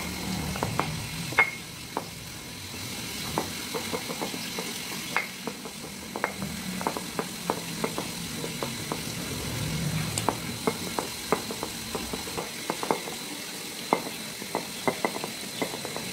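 Stone pestle grinding boiled red chillies in a stone cobek mortar, making irregular taps and knocks of stone on stone, a few a second.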